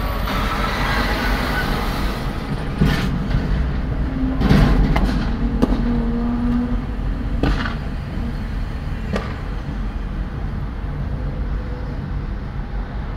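Steady low rumble of traffic and the car's own running, heard from inside the cabin, with a handful of sharp clicks or knocks between about three and nine seconds in.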